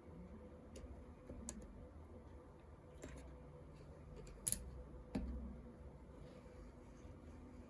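Lego bricks being handled and pressed together: scattered small plastic clicks, with two louder snaps a little after the middle.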